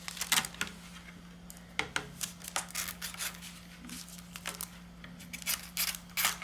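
Small piece of sandpaper rubbed by hand on the broken edges of a plastic piece, roughing them up so the glue can grip: short, irregular scratching strokes with brief pauses.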